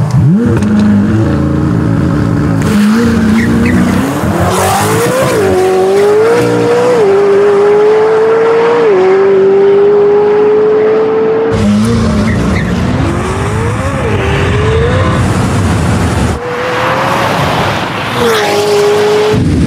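McLaren 720S twin-turbo V8 accelerating hard from a drag-race launch, its pitch climbing and dropping back at each upshift. The sound cuts off abruptly twice and picks up again at a different point in the run.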